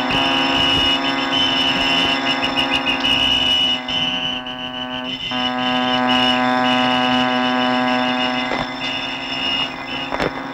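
Ship's alarm sounding: a steady droning tone with a rapid, pulsing high ringing above it, both cutting out briefly about five seconds in and then resuming.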